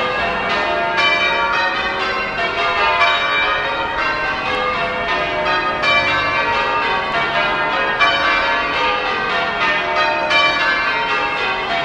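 Church tower bells being rung in change ringing: a steady, unbroken run of bell strikes as the bells sound one after another in changing order, part of the closing stretch of a touch.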